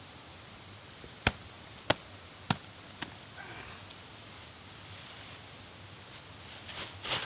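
Four sharp knocks, evenly spaced about half a second apart, followed by faint rustling and a short louder rustle near the end.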